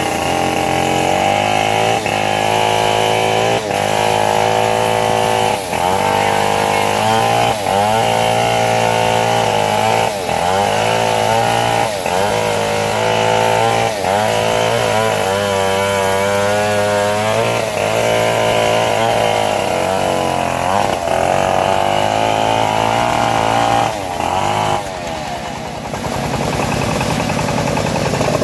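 Engine-driven home-built bandsaw mill sawing a teak log, with a steady engine note and the band blade running through the wood. The pitch sags briefly about every two seconds. The sound changes to a different engine noise near the end.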